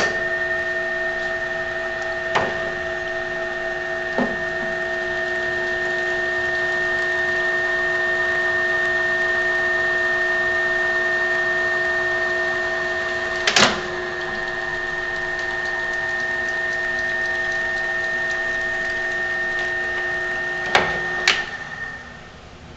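Drill press driving a nine-spindle multiple-spindle drilling head at its slowest speed, a steady whine in several pitches as the nine bits drill through hard plastic. A loud click about halfway through comes where the spindles are switched into reverse to back the drills out. Two clicks near the end come as the machine is switched off, and the whine runs down.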